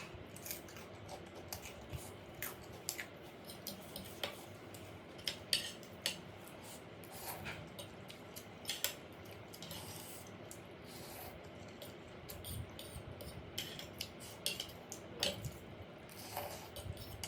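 Cutlery clinking against a bowl of noodles while eating: scattered light clicks every second or two.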